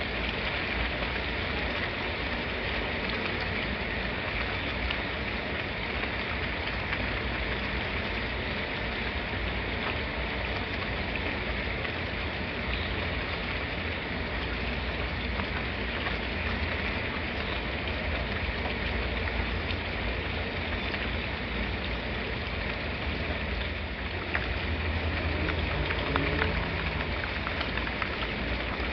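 Steady rainfall: an even, continuous hiss of rain with a low rumble underneath, a little louder near the end.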